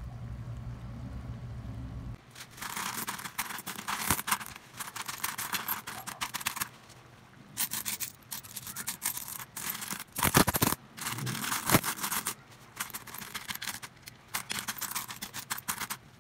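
Loose metal coins jingling, clinking and scraping against each other as a hand stirs through a pile of them, in several bouts with short pauses and one louder clatter about ten seconds in. A low hum underneath stops about two seconds in.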